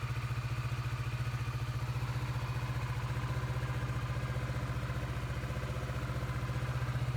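2017 Kawasaki Vulcan S 650's parallel-twin engine idling steadily, an even, unchanging pulse.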